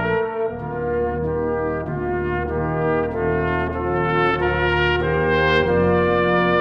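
Brass ensemble of trumpet, French horn, trombone and tuba playing a church hymn in harmony, with a low bass line under held chords that change about every half second.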